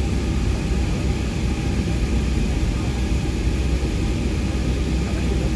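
Steady cabin noise inside a Boeing 757 with Rolls-Royce RB211 engines: a low rumble under an even hiss, holding level without rising or falling.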